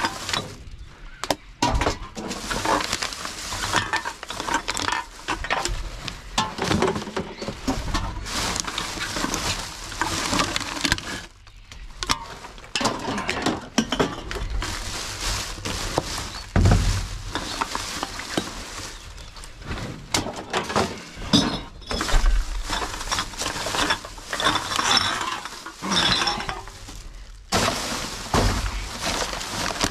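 Glass bottles and jars clinking and knocking against each other as they are handled and sorted, in a continual busy clatter.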